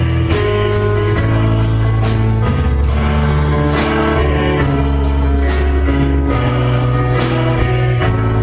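Praise and worship band music with a steady beat: sustained bass notes and chords under regular drum and cymbal hits.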